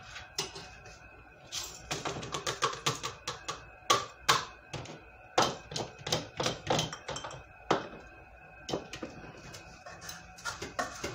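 Glass canning jars clinking and knocking as they are handled on a tray: irregular sharp clicks and taps, some in quick runs.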